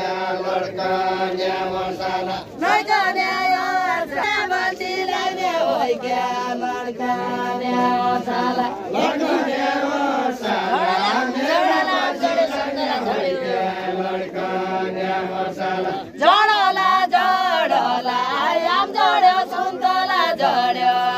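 Deuda, the far-western Nepali sung call-and-response, sung unaccompanied by a group of men's voices. Long notes are held together, broken by lines whose melody slides up and down.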